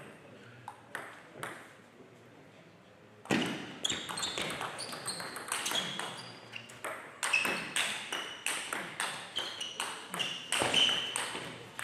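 Table tennis rally: the plastic ball clicking sharply off the bats and the table in quick alternation, with short high pings, starting about three seconds in after a few light taps.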